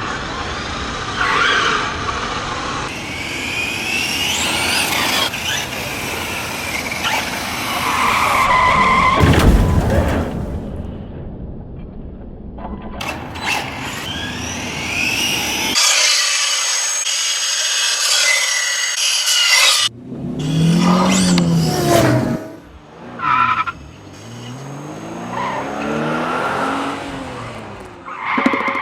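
Electric RC short course truck (Helion Select Four 10SC) running hard, its motor whining up and down in pitch over tyre and gravel noise, in several short clips that cut abruptly from one to the next.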